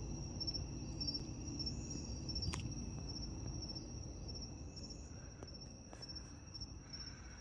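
Night insects, crickets, trilling steadily in a high, even chorus with short repeated chirps on top. A single sharp click sounds about two and a half seconds in.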